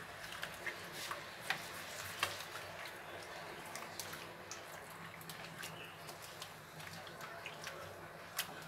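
Eggs and sugar being beaten by hand in a glazed clay bowl, worked until the sugar dissolves: faint wet sloshing with irregular light clicks.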